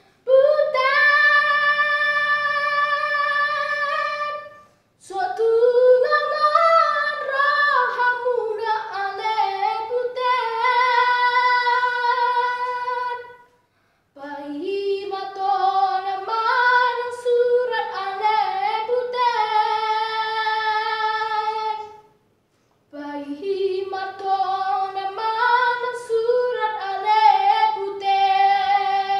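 A boy's solo voice singing unaccompanied, in long held notes and gliding phrases, with three short breaks for breath.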